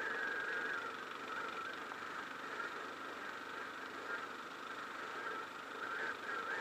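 Motorcycle engine running while riding, heard from a helmet-mounted camera together with wind rush. Its pitch wavers, and it eases a little quieter through the middle before picking up again near the end.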